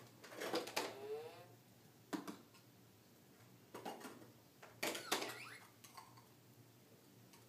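Plastic toy blocks clattering and knocking together as a baby handles them at a toy table, in four short bursts of clicks. Brief pitched squeaks that bend up and down follow the first burst and the last.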